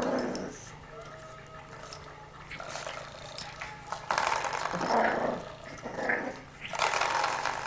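A puppy growling in several short bursts, the loudest about halfway through, as it plays with and bites at a spring door stop.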